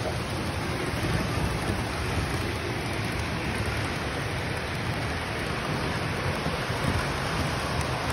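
Model trains running on the layout's track: a steady rumbling hiss of wheels and motors with no breaks.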